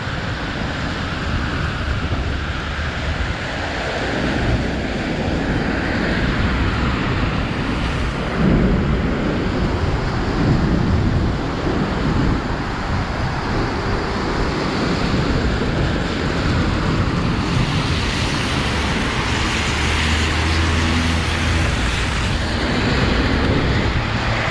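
City street traffic on wet roads: a steady hiss and rumble of passing vehicles, with wind buffeting the microphone at times.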